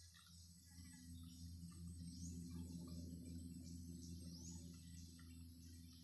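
Faint bird calls: short rising chirps, high-pitched and repeated about once or twice a second, over a steady low hum.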